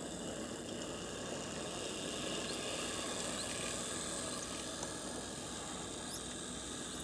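HO-scale model steam locomotive and tender running on the track: a steady whir from its electric motor and gearing, with the wheels rolling over the rails. It grows a little louder in the middle as it passes close by.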